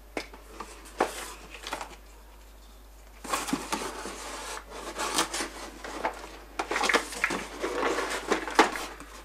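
Rummaging in a cardboard box: cardboard rustling and scraping, with light knocks as packaged fireworks are handled and lifted out. A few short knocks in the first two seconds, then busier rustling and scraping from about three seconds in.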